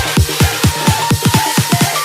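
Electronic dance music with fast, punchy bass-drum kicks and synth notes.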